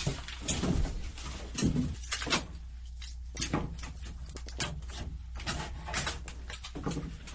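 Scattered knocks, scrapes and rustles of a rigid foam insulation board being handled and pressed into a van's wall cavity, over a steady low hum.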